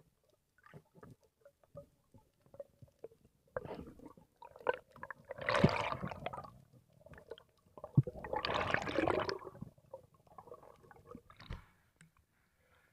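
Water movement heard through an underwater camera: scattered small clicks and knocks, then two loud rushing bursts about a second and a half long each, one about five seconds in and one about eight seconds in, each starting with a sharp knock.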